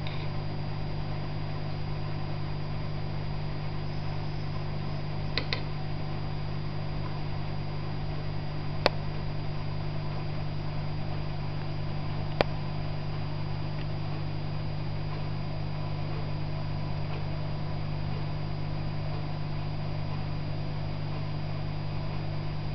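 Steady low electrical hum, typical of an aquarium pump running, with a few sharp clicks about a third and halfway in.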